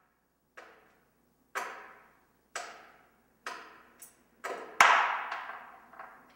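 Hard, echoing impacts about once a second, each ringing briefly and growing louder, with a quicker run of hits and the loudest, heaviest one about five seconds in.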